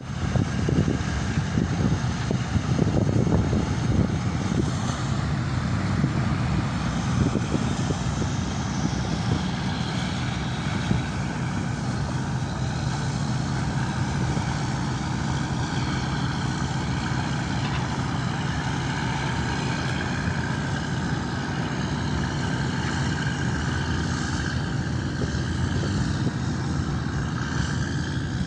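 Motor boat engine droning steadily, a little louder and rougher for the first few seconds.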